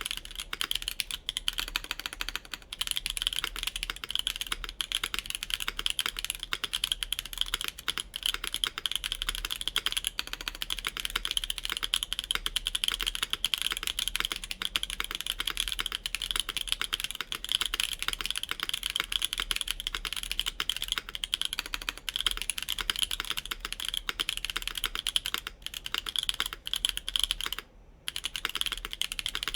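Steady, fast typing on a mechanical keyboard with lubed Mode Obscura linear switches, GMK Terminal keycaps, an FR4 plate and an O-ring mount in a wooden Bakeneko65 case. The keystrokes run on continuously, with one brief pause near the end.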